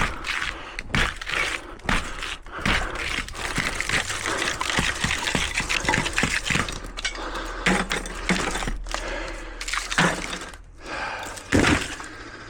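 Continuous crackling and scraping with frequent irregular clicks and knocks, from salvaged transformers being pulled apart by hand for their copper windings.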